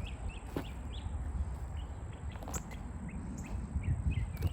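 Small birds chirping in short repeated notes over a steady low rumble.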